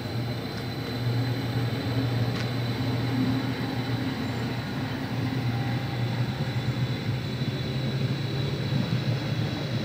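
Stadler Flirt electric multiple unit, several sets coupled, running along the platform: a steady rumble of wheels on rail with a strong low hum and a thin high tone.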